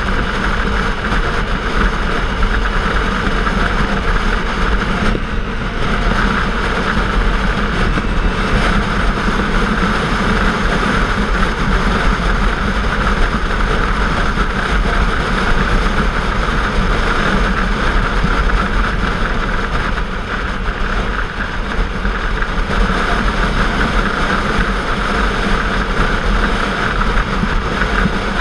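Motorcycle ridden at a steady road speed, heard from a camera on the bike: a steady rush of wind noise with the engine running underneath, easing briefly about five seconds in.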